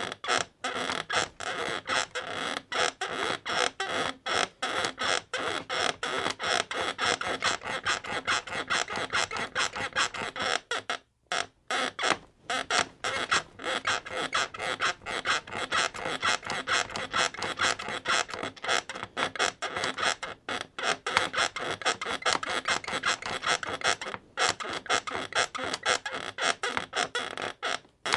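Bed creaking over and over in a fast, steady rhythm, several creaks a second, with a brief pause about eleven seconds in.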